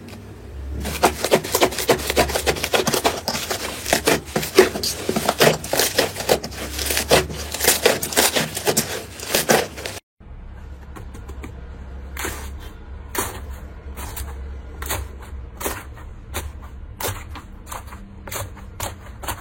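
Rapid, irregular clicking and tapping, dense for the first ten seconds; after a sudden break about ten seconds in, the clicks come sparser and quieter.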